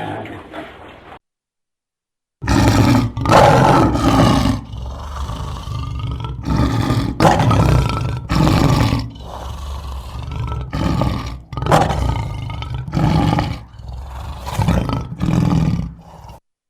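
A lion roaring: a long series of deep roars and grunts, one after another, starting a couple of seconds in and cutting off shortly before the end. The first second holds the end of quieter pig grunting.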